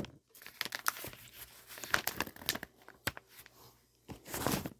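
Paper rustling and crinkling as the radio's paperwork booklets are handled: irregular crackles, with a louder rustle near the end.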